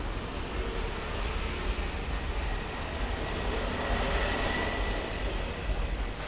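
Steady low rumble with a hiss of background noise, swelling slightly around the middle, where a faint thin high tone also rises.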